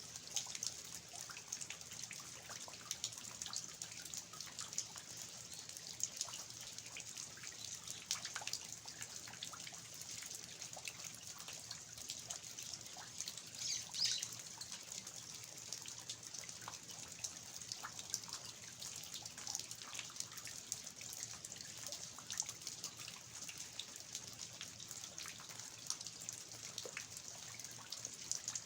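Steady rain falling on the garden of an old traditional Korean house, with eave water dripping in many separate drops. One louder splash comes about halfway through.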